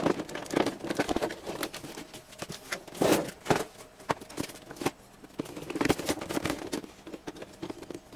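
Toy packaging handled at close range: the clear plastic window and cardboard of an action-figure box crinkling and crackling in irregular bursts, busiest in the first few seconds and again about six seconds in, thinning out near the end.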